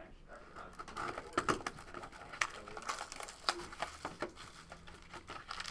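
Plastic shrink wrap on a sealed trading card box being slit and crinkled, with scattered sharp clicks and taps of the cardboard box being handled and opened.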